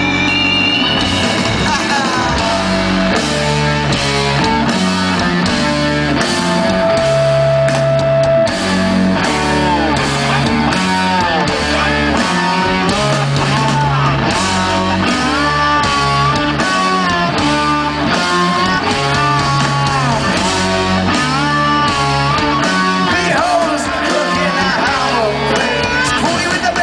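Rock band playing live and loud: distorted electric guitar, bass and a driving drum beat, recorded from the crowd.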